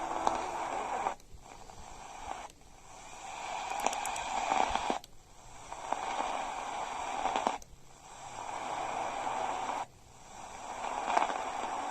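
Radio receiver on medium wave giving hiss and static, with a few faint crackles; the noise cuts out abruptly five times, every two to two and a half seconds, and swells back each time as the set is stepped through the band. Weak reception through a damaged antenna, with no station coming through clearly.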